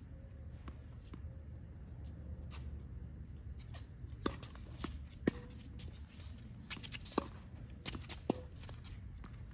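Tennis rally on a hard court: a string of sharp pops from racket strikes and ball bounces, irregularly spaced and mostly in the second half, a few with a brief ringing note from the strings, over a steady low rumble.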